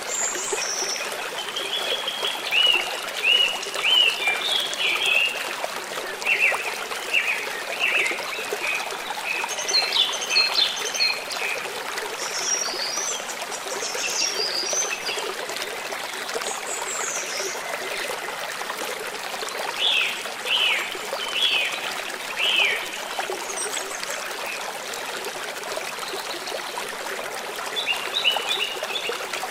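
Stream water trickling steadily, with birds chirping in short phrases that come and go over it.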